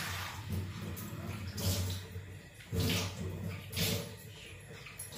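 Water from a kitchen tap running and splashing into a steel sink as things are washed under it, with several louder surges of splashing.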